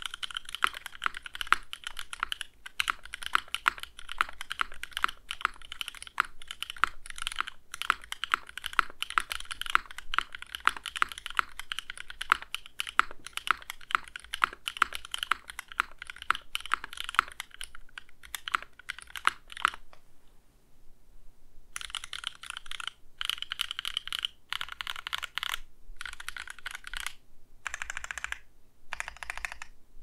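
Mechanical keyboard typing on factory-lubed TTC Neptune switches, low in volume: fast continuous keystrokes for about twenty seconds, a pause of about two seconds, then shorter runs of key presses with brief gaps between them.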